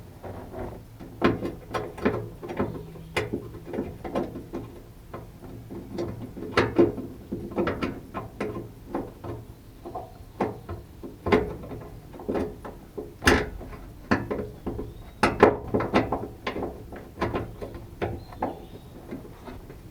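Hand tools and metal parts working in a pickup truck's door: a ratchet wrench clicking and parts clinking, in an irregular string of sharp clicks and knocks.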